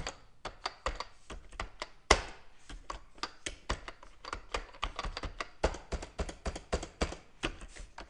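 Computer keyboard being typed on fast: a dense, irregular run of key clicks, with one louder keystroke about two seconds in.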